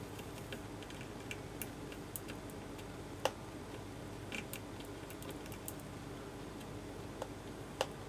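Soldering iron reflowing the pins of a RAM chip on a circuit board, with scattered faint ticks and clicks, a louder click about three seconds in and another near the end, over a low steady hum.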